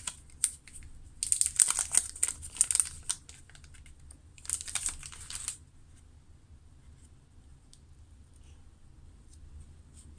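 Clear cellophane sleeve crinkling in the hands as a pad of paper tickets is worked out of it, in two bursts: one about two seconds long, then a shorter one a little later.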